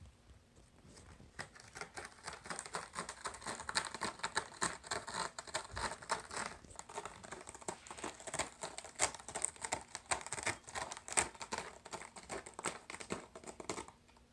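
A cat clawing at a scratching board: a quick, uneven run of rasping scratches that starts about a second in and stops shortly before the end.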